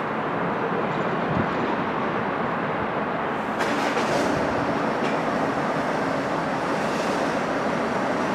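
Vossloh DE 18 diesel locomotive running light on its own, heard as a steady engine drone within constant outdoor background noise, with a few faint clicks about halfway through.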